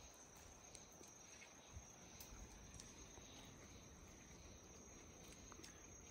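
Near silence with a faint, steady high-pitched insect chorus, crickets or similar, and a few faint clicks.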